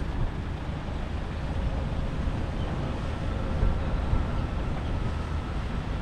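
Wind buffeting the camera microphone in a low, fluttering rumble while walking outdoors.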